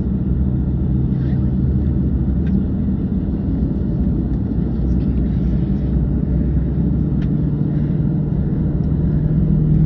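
Steady low rumble and hum of a Boeing 737-700's CFM56 jet engines running, heard inside the passenger cabin, growing slightly louder near the end.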